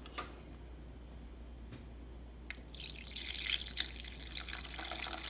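Vegetable broth being poured into a paella pan of rice and tomatoes: a few faint clicks, then a steady trickling pour that starts under three seconds in.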